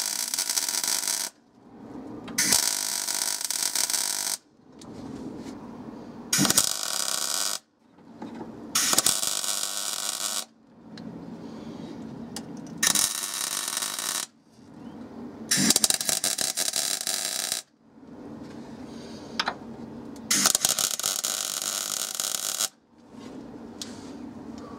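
Electric welder stitch-welding a steel bracket onto a car's bulkhead: a hissing, crackling arc in about ten short runs of a second or two each, with brief pauses between.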